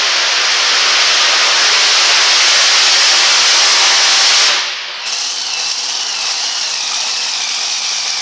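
Supercharged pulling truck's engine running flat out under load as it drags the pulling sled, a loud, dense roar. About four and a half seconds in it drops away sharply as the throttle comes off, leaving a quieter running engine with a wavering high whine.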